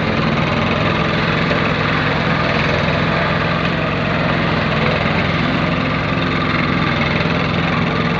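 Engine of a concrete kerb-making machine running steadily at an even speed.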